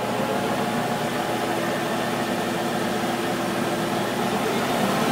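Monarch 10EE lathe spindle running under its DC drive, a steady, fairly quiet machine hum that grows a little louder near the end as the speed is turned up toward 3,000 RPM.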